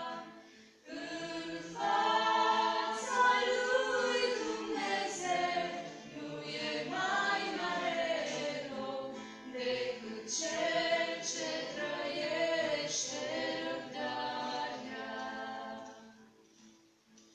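A small group of women singing a church song together, with short breaks between phrases about a second in and near the end.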